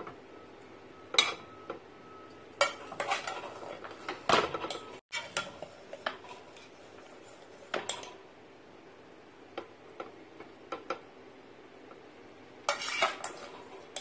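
Metal serving spoon scraping and clinking against a metal pot while scooping out cooked polao rice: irregular clusters of clinks, with a few lighter ticks between.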